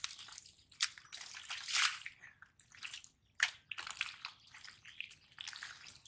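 Hands groping through wet mud and shallow muddy water, making irregular squelches and small splashes.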